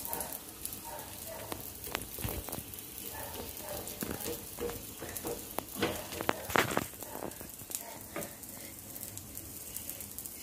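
Pesarattu batter and chopped onions sizzling in oil on a hot non-stick dosa pan, with a few sharp taps and scrapes of a spatula against the pan.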